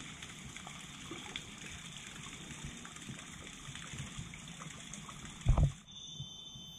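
Steady high hiss of jungle ambience, with one loud thump about five and a half seconds in. Near the end it switches abruptly to a steady shrill drone of forest insects, like drilling.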